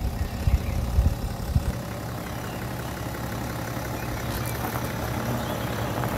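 BMW 530d's N57 straight-six diesel running at low revs as the car creeps forward across gravel, growing a little louder toward the end. Uneven low buffeting rumbles come in the first second or two.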